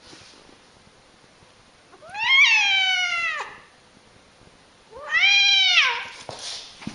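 Long-haired domestic cat giving two long, drawn-out yowling meows, each rising and then falling in pitch: an angry, defensive protest at a hand reaching toward it. A short hiss-like rush of noise follows the second call.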